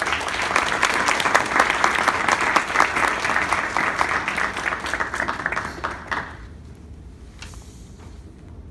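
Audience applauding, many hands clapping at once, then stopping abruptly about six seconds in, with a lone clap afterwards.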